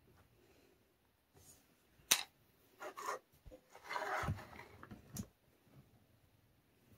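Craft-table handling sounds: a sharp tap about two seconds in as a small plastic paint cap is set down on the table, then a scraping rub as the stencilled board is slid and turned on the tabletop, ending in another tap.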